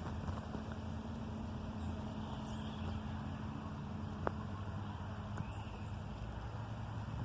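Steady low engine hum of a running vehicle, with a single sharp click about four seconds in.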